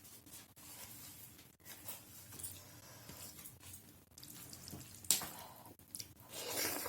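Wet eating sounds close to the microphone: chewing and squishing of a rice, dal and mashed potato meal. There is a sharp click about five seconds in and a louder, noisier sound near the end.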